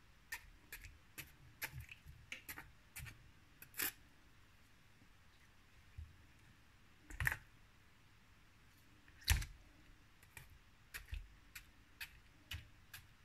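Small knife pricking Belgian endive heads in a stainless steel frying pan, its tip clicking faintly against the metal bottom, with two louder knocks about seven and nine seconds in.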